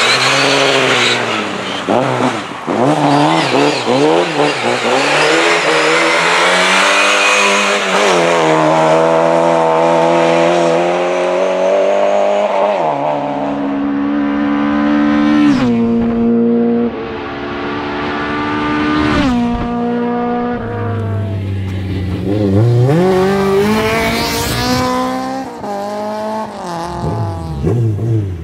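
Lada rally cars' four-cylinder engines revving hard, the pitch climbing and then dropping at each gear change, several times over.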